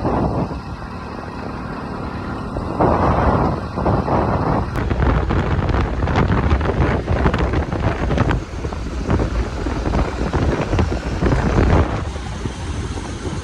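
A road vehicle running on the move, with wind buffeting the microphone in irregular gusts from about five seconds in.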